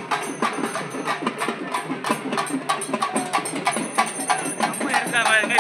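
Procession drums beating a fast, steady rhythm over a crowd's chatter. Near the end a high, warbling voice rises over the drumming.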